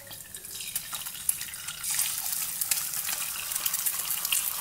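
Raw egg sizzling and spattering in a spoonful of hot oil in a nonstick pan, a crackling hiss with many small pops that grows louder about two seconds in.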